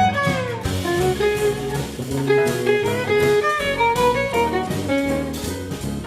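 Background music: an upbeat jazzy instrumental with a steady beat and melodic lines that slide in pitch.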